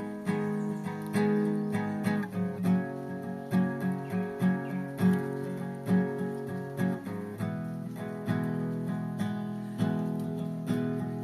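Acoustic guitar (violão) playing, with a run of evenly spaced plucked notes in the middle of the passage.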